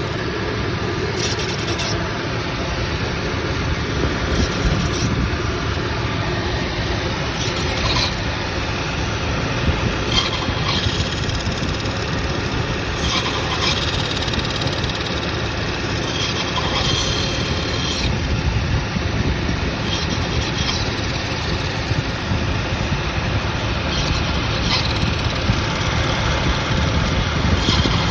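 1999 Volkswagen Passat GLX 2.8 V6 engine running steadily, with short high-pitched noises coming back every few seconds: the unfamiliar weird sound the owner is trying to pin down.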